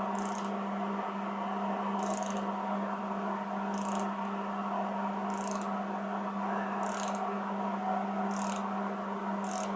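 Short high scraping strokes about every one and a half seconds, coming a little quicker near the end, over a steady electrical hum: a broken stud being worked out of an LS engine block, turn by turn.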